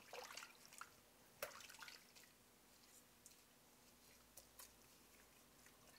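Faint wet squelching and small splashes of a hand squeezing blended palm nut pulp in warm water in a stainless steel pot, working the palm fruit juice out of the fibre. Most of the squelches come in the first two seconds, with a couple more past the middle.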